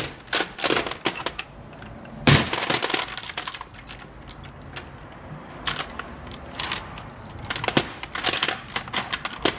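Metal sockets and hand tools clinking and clattering as they are rummaged through in a toolbox, with one louder clank about two seconds in.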